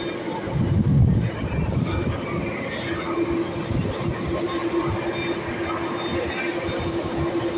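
Steady jet-engine whine and hum of aircraft on the apron, with a high thin whine held throughout. Wind buffets the microphone with a low rumble, strongest about a second in.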